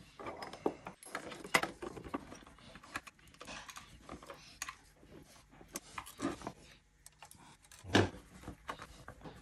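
Small hex screwdriver and screws clicking and tapping against an aluminium extrusion frame while the screws are driven and tightened, a scatter of light metallic clicks and rattles. A short voice sound about eight seconds in.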